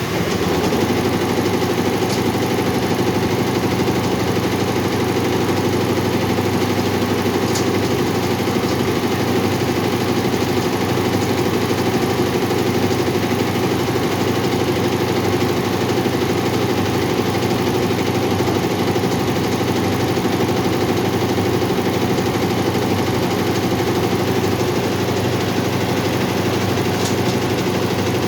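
Four-head computerized embroidery machine running steadily at speed, stitching; it comes up to speed right at the start.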